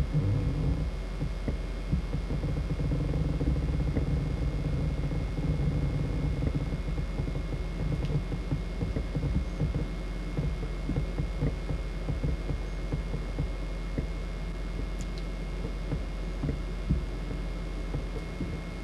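Low, uneven rumble of a whale-watching boat's engine, with wind buffeting the microphone and a faint steady high whine.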